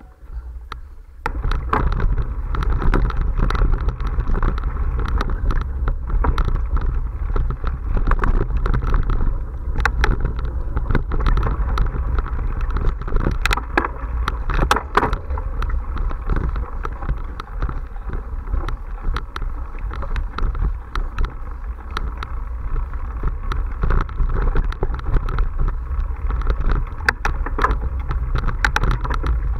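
Ride noise from a camera on a mountain bike on a dirt forest trail: wind buffeting the microphone, tyres rolling on dirt, and constant rattling and clicking from the bike and its mount. It gets much louder about a second in and stays loud throughout.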